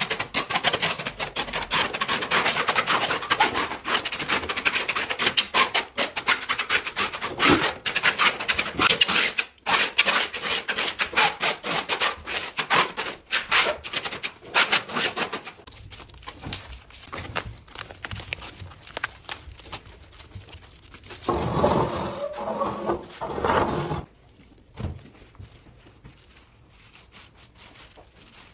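Metal scraper blade rasping across a cement screed floor in quick repeated strokes, scraping off sand and residue over a resin-filled crack. The strokes thin out and get quieter after about fifteen seconds, with a louder, fuller rubbing stretch of two or three seconds later on.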